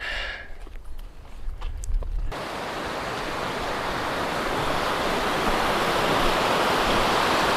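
Steady rush of flowing creek water, starting suddenly about two seconds in and growing slightly louder. Before it, only a few faint clicks and a low rumble.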